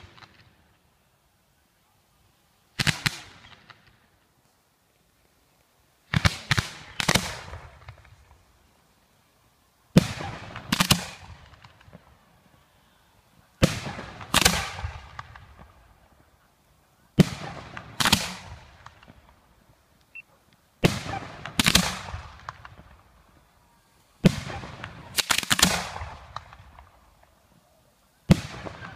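Professional fireworks shells going off one after another: about eight volleys, roughly every three and a half seconds. Each is a pair of sharp bangs close together, followed by a crackling tail that dies away.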